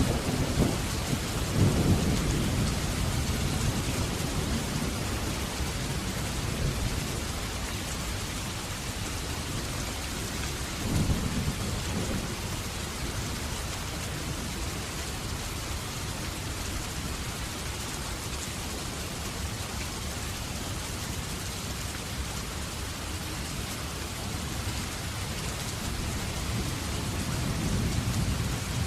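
Heavy rain pouring steadily, with thunder rumbling at the start, a short rumble about eleven seconds in, and another swelling rumble near the end.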